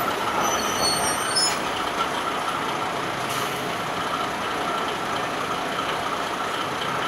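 Steady running noise of the KiHa 52 diesel railcar heard through an open window: engine and wheels on the rails as the train rolls along.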